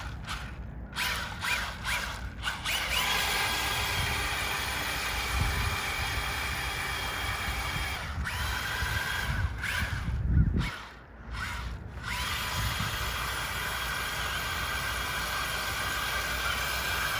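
Small electric motor of a remote-control Batmobile ATV toy, whining steadily under throttle. It cuts out briefly a few times near the start and again about halfway through.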